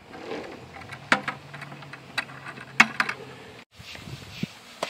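Scattered sharp clicks and knocks, about half a dozen, with a faint low hum under the middle part.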